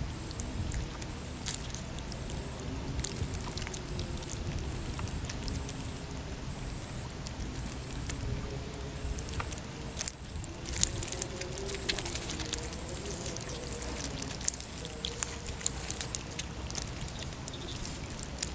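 Small lundu catfish wriggling and flapping in a landing net on wet mud: a wet patter of scattered clicks and slaps that gets busier about halfway through. A faint high-pitched chirp repeats in short pulses behind it.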